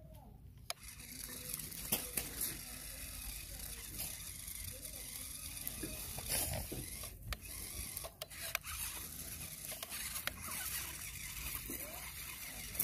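Small model tractor crawling over a pile of loose rounded stones: gravel crunching and clicking under its tyres. It sets in under a second in and goes on with many small clicks.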